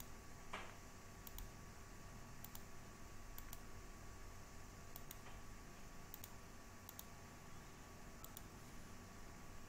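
Near-silent room tone with a faint steady hum, one soft click about half a second in, and faint high ticks roughly once a second.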